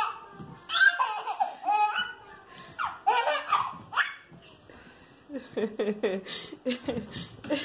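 A baby laughing hard in repeated bursts of belly laughs, followed in the last two seconds by lower-pitched laughter in quick pulses.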